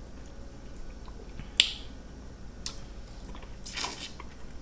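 Close-up mouth sounds of seafood eating: a sharp wet lip smack about a second and a half in, a fainter one a second later, then a short slurp near the end as a piece of shellfish tail meat goes into the mouth.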